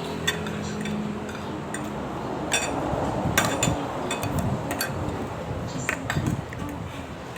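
Scattered clinks and taps of dishes and cutlery, several sharp clicks in a row about three seconds in and more near the end, over a low background murmur.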